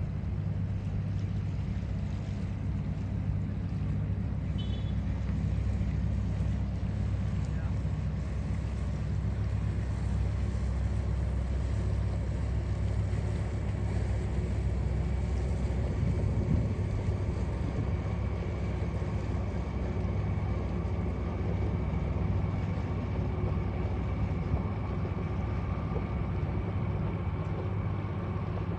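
Cessna 180J Skywagon floatplane taxiing on the water, its six-cylinder piston engine and propeller running in a steady low drone.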